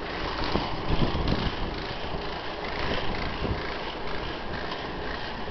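Wind buffeting the microphone as a steady low rumble, with irregular soft thumps.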